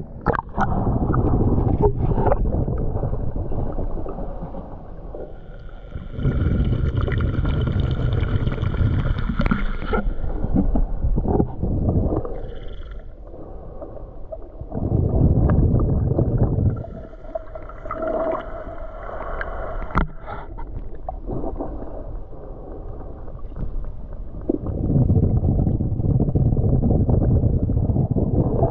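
A swimmer moving through lake water, heard through a camera held below the surface: muffled rushing and gurgling water noise that swells every few seconds, with a faint high whine that comes and goes.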